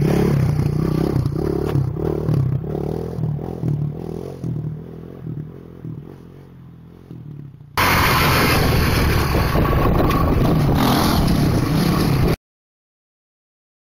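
Honda TRX450R quad's single-cylinder four-stroke engine running through a wheelie, fading as the quad rides away. About eight seconds in it cuts suddenly to the engine loud and close during another wheelie. Near the end the sound drops out completely.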